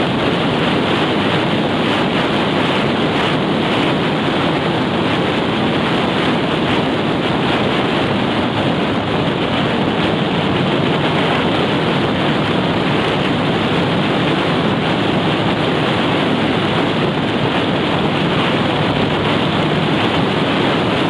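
Steady wind rush on a motorcycle-mounted camera's microphone while the bike rides at road speed, an even roar with no distinct engine note standing out.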